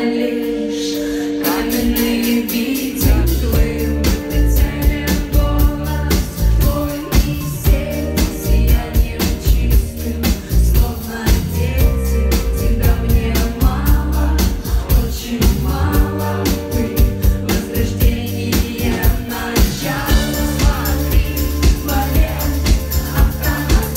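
Live pop song: a woman singing over held synth chords. About three seconds in, a heavy bass and drum beat comes in and keeps a steady rhythm.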